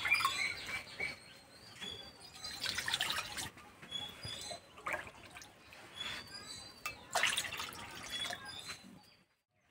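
Water poured from a cup into a metal kadai that already holds some water, splashing in two louder pours about 3 s and 7 s in, with birds chirping faintly.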